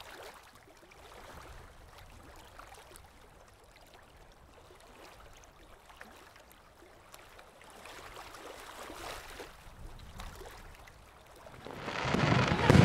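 Faint outdoor background noise, then near the end aerial fireworks start, quickly growing loud with a dense crackle of bursts.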